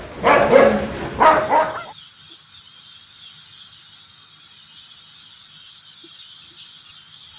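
A large dog barks twice in quick succession, loud and pitched, within the first two seconds. A steady hiss follows.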